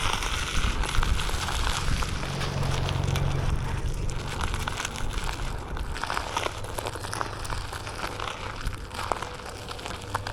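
Wind rumbling on the microphone, with many small crackling clicks throughout.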